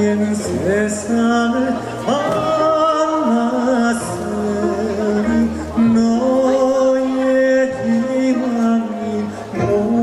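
A male Korean folk singer (sorikkun) singing a slow song into a microphone, with long held notes, accompanied by a Korean traditional (gugak) orchestra.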